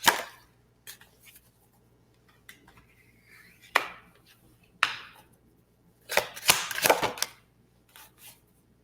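Tarot cards being shuffled and snapped down on a table: a few single sharp snaps, then a quick run of clicks about six seconds in.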